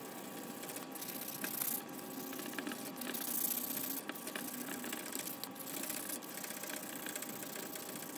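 400-grit sandpaper rubbed by hand along a polished stainless steel drip rail molding in irregular back-and-forth strokes, smoothing the metal after filing, over a faint steady hum.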